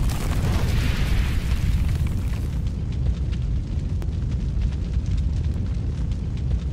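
Cinematic logo-reveal sound effect: a deep, continuous rumble of a fiery eruption, with a hissing surge in the first couple of seconds and scattered crackles after it.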